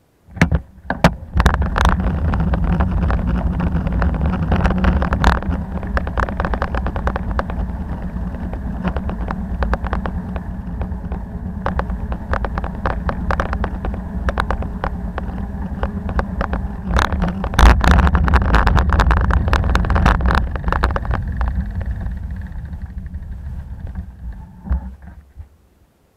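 Riding noise picked up by an SJCAM M10 action camera on a moving bicycle: steady low wind and road rumble with many sharp knocks and rattles from bumps in the surface. It cuts in suddenly, grows louder about two-thirds through, and dies away near the end.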